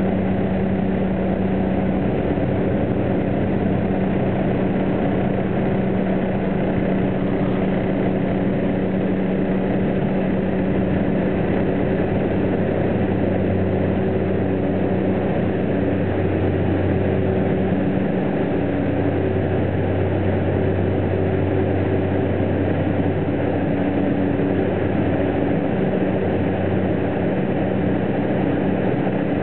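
Single-engine float plane's piston engine and propeller running steadily at low power on the water, heard from inside the cabin, with a low, even engine hum.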